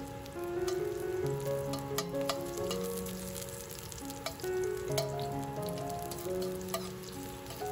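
Ginger slices and star anise sizzling and crackling in hot oil in a wok as a slotted metal spatula stirs them, over background music with held notes.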